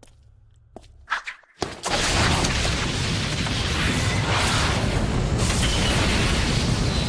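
A few sharp clicks over a faint low hum, then about a second and a half in an explosion sound effect goes off, and the blast carries on as a loud, steady noise.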